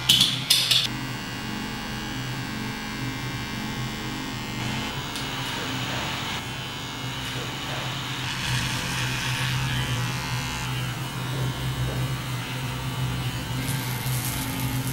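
Electric hair clippers buzzing steadily as they cut close-cropped hair against the scalp, with a few sharp clicks in the first second. A high hiss joins near the end.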